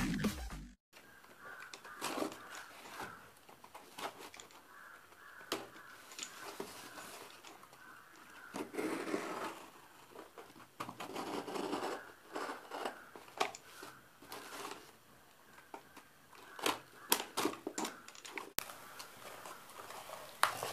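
Electronic music cuts off within the first second. Then a utility knife scrapes and slices through packing tape on a cardboard shipping box, with scattered taps, scrapes and rustles as the cardboard is handled and its flaps are opened.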